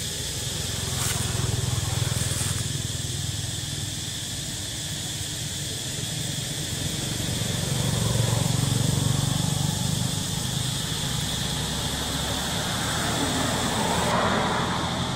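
Outdoor background of a steady high insect drone over a low rumble that swells twice and fades.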